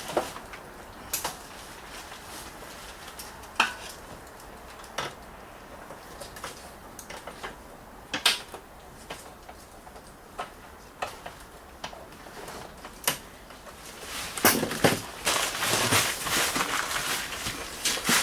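Metal hand tools and parts clinking and knocking against the mower's metal frame, one sharp clink every second or two, then a busier clatter of metal over the last few seconds.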